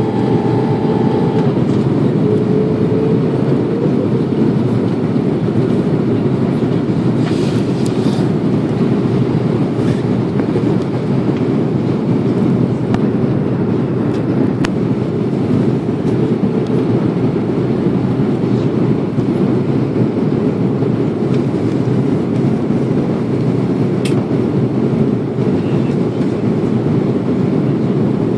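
Aircraft noise during a landing: a steady, loud low rumble of engines and airflow, with a steady engine tone in the first few seconds.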